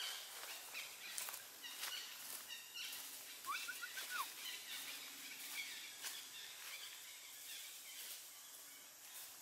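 Faint outdoor ambience with scattered bird chirps, including a quick run of four short chirps about three and a half seconds in, and a few light clicks.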